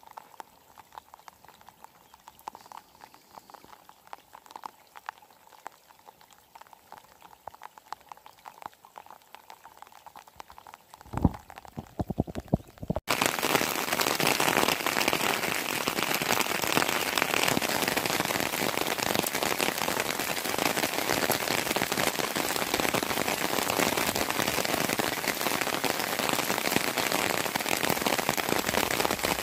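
Steady heavy rain pattering on water and ground. It starts abruptly about halfway through; before that there are only faint scattered drips and ticks and a single knock.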